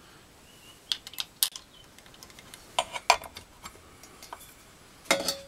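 Metal Stirling engine parts clicking and clinking as they are handled and fitted together by hand: a few scattered light knocks, then a louder clatter with a brief metallic ring near the end.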